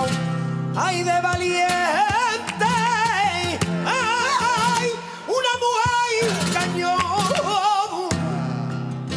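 Flamenco cante: a male singer's long, wordless, melismatic phrases with heavy vibrato, starting about a second in, over flamenco guitar accompaniment.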